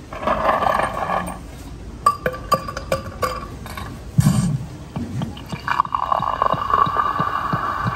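Recorded Coca-Cola sound effect played by a novelty box when it is opened: sharp glass and ice clinks, then a pour settling into a steady fizz of bubbles.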